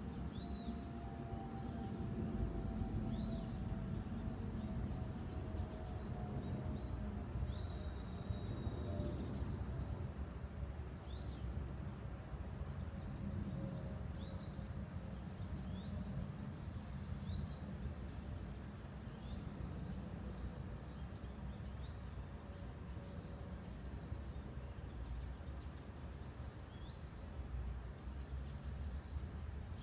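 Outdoor ambience: small birds chirping now and then, short high chirps every second or two, over a steady low rumble. A faint droning tone slowly drops in pitch and fades out about halfway through.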